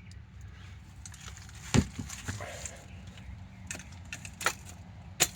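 Sharp clicks and knocks of brake pads and their small metal clips being picked up and handled: one loud knock a couple of seconds in, lighter clicks after, and two more sharp clicks near the end.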